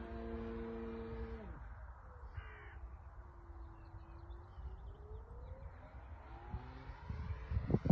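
Engine of a radio-controlled aerobatic model plane flying overhead: a steady buzz that drops off sharply about a second and a half in as it is throttled back, then a faint drone that dips in pitch and climbs again. A crow caws once about two seconds in, and there are a few low thumps near the end.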